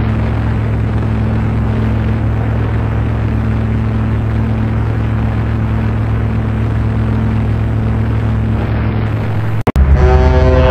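A warship's deep horn sounding one long steady blast over a rushing hiss. Near the end it cuts off and a second, higher-pitched horn blast with a fuller tone begins.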